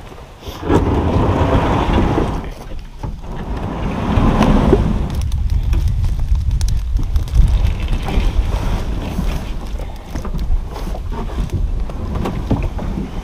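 Wind buffeting the microphone with a heavy, steady low rumble, and scattered knocks and rustles as a person steps into a small plastic boat at the water's edge and sits down.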